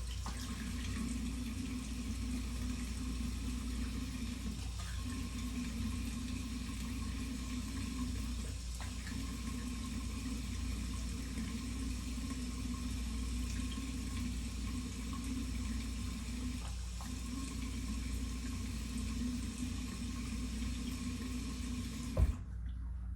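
Water running steadily from a tap while hair is wetted, dipping briefly three times, then shut off with a knock about 22 seconds in.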